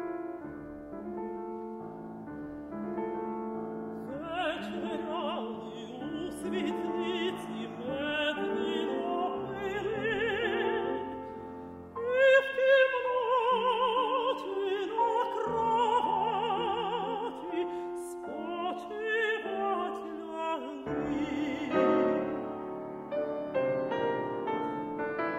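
Mezzo-soprano singing with wide vibrato over piano accompaniment. The piano plays alone for the first few seconds, the voice comes in about four seconds in, and it swells loudly about halfway through.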